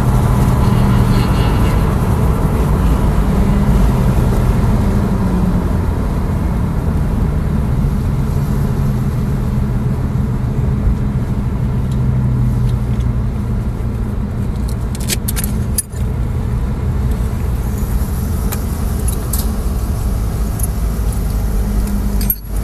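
In-cabin noise of a Tesla Model S Plaid driving at moderate speed: steady tyre and road rumble with a low drivetrain hum. A few light clicks or rattles come about two-thirds of the way in.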